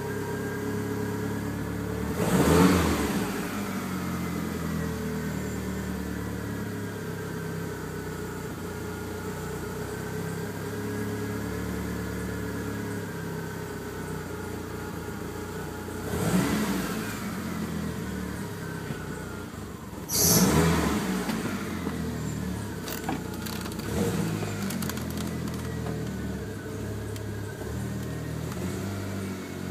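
DSM car engine running with slowly wavering revs, interrupted four times by sudden loud bursts. The owner puts the sputter and bog down to a misfire and a lean mixture at idle and cruise.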